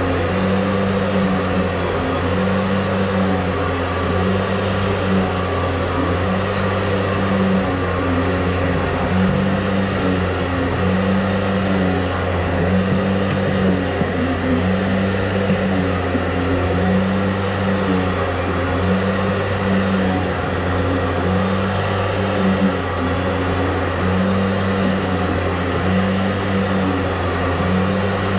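Drain-cleaning machine's motor running steadily under load, with a low hum and a note that swells and fades in a slow, regular rhythm.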